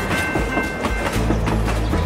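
Train clickety-clack: wheels clattering over rail joints in an uneven run of clicks, over background music with a steady bass line.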